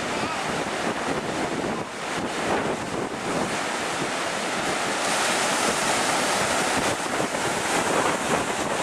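Rough surf breaking and washing in, with strong wind buffeting the microphone; the rushing noise swells about five seconds in.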